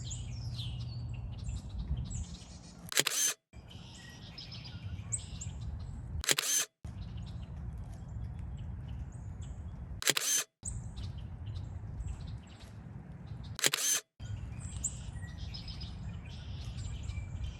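Camera shutter firing four times, three to four seconds apart, each sharp click followed by a brief dropout in the sound, while small birds chirp around the feeders.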